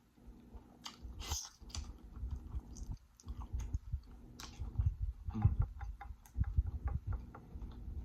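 Close-miked chewing of food, with wet mouth smacks and sharp clicks between bites.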